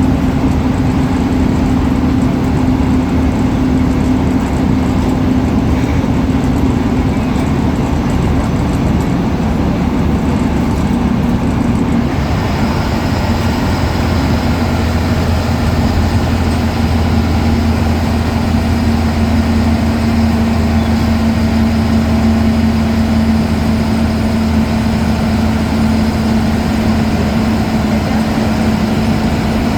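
Ashok Leyland BS4 bus turbo-diesel engine running steadily. About twelve seconds in its note drops a little, the low rumble grows, and a thin steady high whistle, the turbo, joins in.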